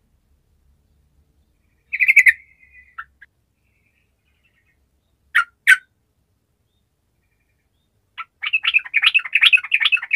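Yellow-vented bulbul singing: a short bubbly phrase about two seconds in, two sharp notes in the middle, then a fast run of chattering notes near the end.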